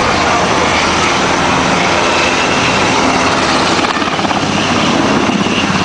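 Helicopter flying low overhead, its rotor and engine noise loud and steady.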